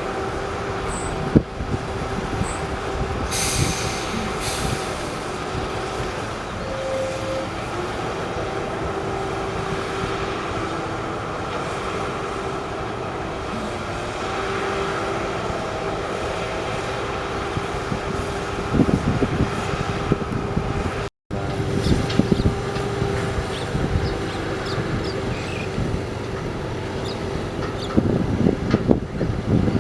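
Heavy earthmoving machinery running: a steady engine drone with a held whine over it, and a few knocks and thuds near the end.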